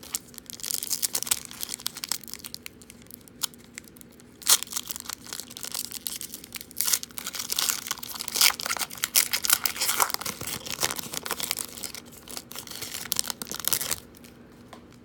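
Foil wrapper of a 2018 Donruss football card pack being torn open and crinkled by hand: a run of crackling rips and rustles, the sharpest about four and a half seconds in, stopping about a second before the end.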